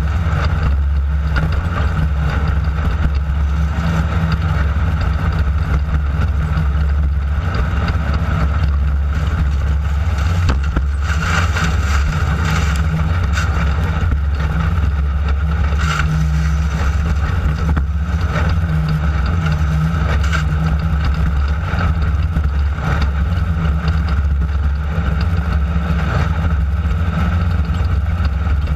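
Class 9 desert-racing buggy's air-cooled Volkswagen engine running steadily under load at race pace over rough dirt, a loud low drone with scattered knocks and rattles from the car. There is a rougher, noisier stretch about 11 to 13 seconds in.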